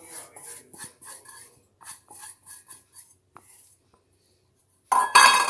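Stainless steel bowl being tipped and tapped to empty rice flour into a steel mixing plate: soft scrapes and taps, then near the end a loud ringing clang of steel on steel.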